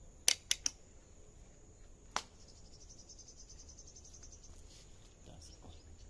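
Insects trilling with a steady high tone, with a fast pulsing trill for about two seconds starting a little after two seconds in. Three sharp clicks come in quick succession near the start and one more about two seconds in; these clicks are the loudest sounds.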